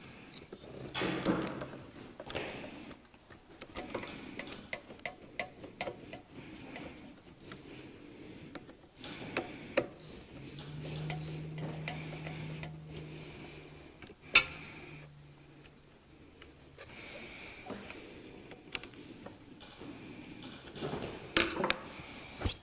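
Light clicks, taps and scraping of a screwdriver and small metal parts being handled on a generator's carburetor and throttle-cable linkage, with one sharper click partway through. A low steady hum comes in near the middle for several seconds.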